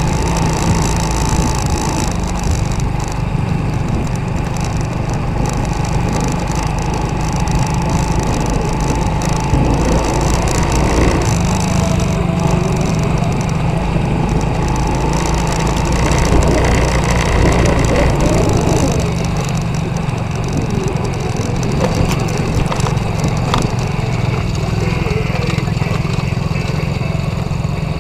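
Petrol engine of a 125 cc children's ATV running steadily while riding, with a rough, crackly noise over it.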